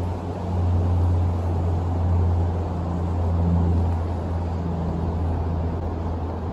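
Steady low outdoor rumble: a constant deep drone with a rushing hiss above it and no distinct events.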